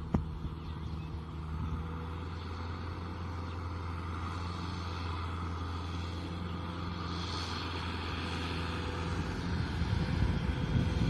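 Kubota M6040SU tractor's diesel engine running steadily under load while pulling a disc through a muddy paddy field; it grows louder and rougher near the end as the tractor comes closer.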